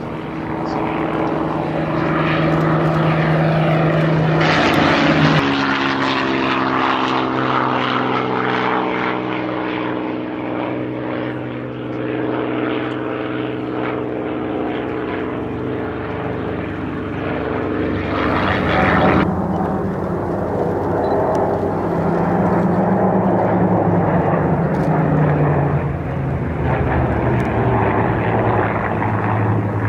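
Propeller engines of Second World War fighters, a Spitfire and a P-47 Thunderbolt among them, droning loudly on low passes. The engine pitch drops about five seconds in as one aircraft goes by, and there is another loud pass just before the middle.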